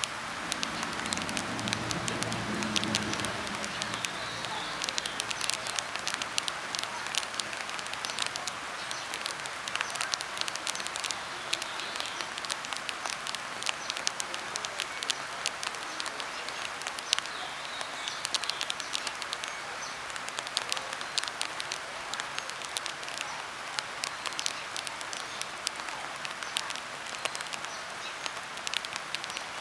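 Rain falling on a surface: a steady hiss thick with irregular patter and crackle of drops. A faint low murmur sounds under it for the first few seconds.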